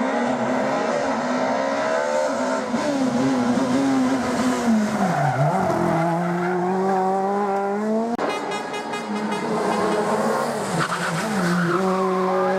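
Rally car engine on a stage, loud, with its pitch falling sharply as the driver lifts and then climbing again under acceleration. About eight seconds in the sound cuts abruptly to another stretch of engine, which dips and rises the same way.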